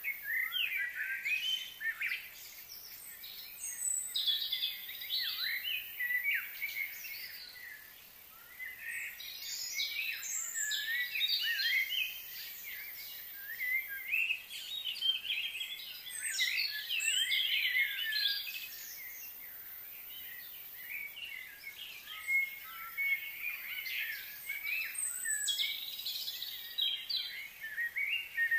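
Birds chirping and twittering, many short high quick notes overlapping almost without pause, with a quieter stretch about eight seconds in.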